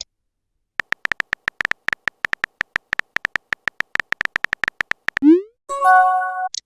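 Electronic sound effects: a rapid run of short high beeps, about five or six a second, then a quick rising swoop and a brief held synthesizer chord near the end.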